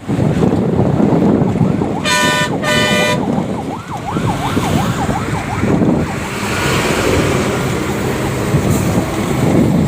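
Highway traffic with steady engine and tyre noise. About two seconds in, a vehicle horn blares twice in quick succession, and a brief warbling, siren-like tone follows.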